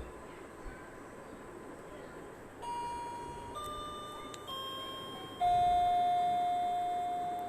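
A series of steady electronic tones, each held about a second at a different pitch, starting a little over two seconds in. The last tone is lower, the loudest, and held about three seconds. Low background hiss runs underneath.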